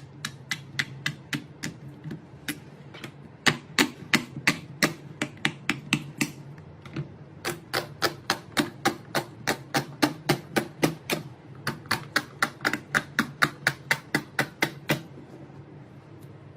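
Silicone pop-it fidget toy bubbles being pressed one after another: a long run of sharp pops, about three or four a second, with a couple of short pauses, stopping near the end.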